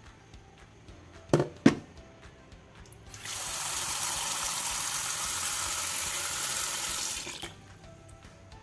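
Tap water pouring into a steel bowl of mussels in a stainless-steel sink, a steady rush that starts about three seconds in and cuts off about four seconds later. Two short knocks come a little before it.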